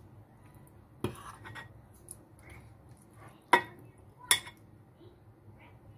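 Spoon clinking and scraping against a bowl of chicken sauce while dishing out: a short scrape about a second in, then two sharp clinks less than a second apart near the middle.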